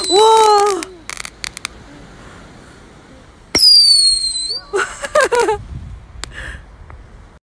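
Handheld firework tube firing shots into the air. Each launch is a sharp pop followed by a falling whistle, once at the start and again about three and a half seconds in, with crackling pops between and after. Excited voices squeal with each shot.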